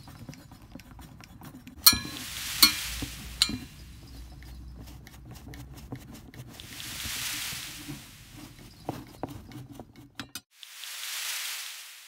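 Hand knockout punch being wrenched through a thin steel panel: three sharp metallic cracks with ringing about two to three and a half seconds in as the punch cuts the sheet, then a run of lighter metal clicks and clinks near the end. Soft swells of hiss come and go in between.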